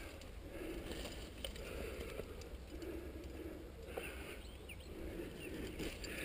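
Steady, rhythmic breathing of a climber close to the microphone, each breath a soft puff about once a second, with a few faint taps of hands on rock.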